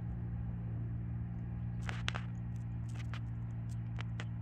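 Steady low drone of farm machinery engines at work, tractors and rice transplanters during rice planting, with a few light clicks in the middle.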